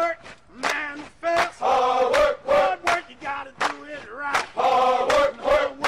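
A group of male voices chanting a song in unison, in short phrases with brief breaks between them.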